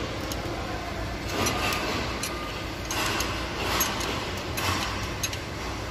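Metal tool clicks and scrapes as a ring spanner and screwdriver work the valve-clearance adjusting screws and lock nuts on the rocker arms of a Deutz TD 2011 L04 engine, coming irregularly about once or twice a second over a steady low hum.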